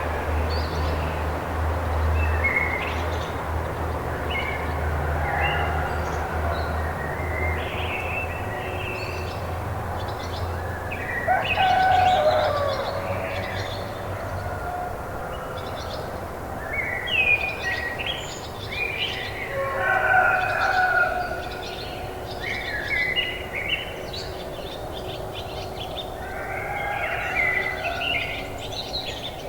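Rural morning ambience of many small birds chirping and calling, the calls short and overlapping throughout, with a few louder bursts of calling. A low hum sits under the first half and fades away.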